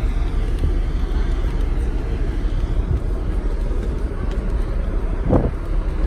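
Wind buffeting the phone's microphone on an open ship deck: a steady, rough low rumble that rises and falls slightly, with a brief sharper sound about five seconds in.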